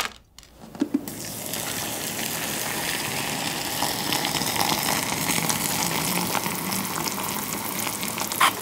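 Hot water poured from an electric kettle into a paper instant-noodle cup, a steady splashing stream that starts about a second in as the cup fills.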